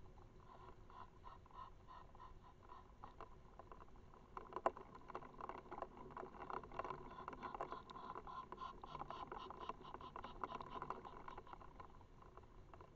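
Light rain pattering: scattered drops tapping close to the microphone, growing denser about four seconds in, with one sharper tap.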